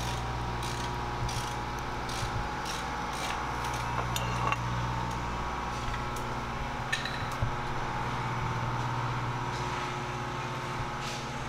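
Steady low hum of workshop background noise, with scattered light clicks and knocks of handling.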